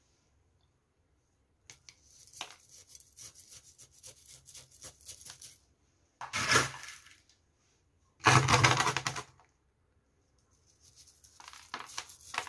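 Small black gravel spooned onto the soil of a potted succulent as a top dressing, the little stones clicking and rattling as they drop and the metal spoon scraping through them. Two louder rattling pours come about six and a half and eight and a half seconds in.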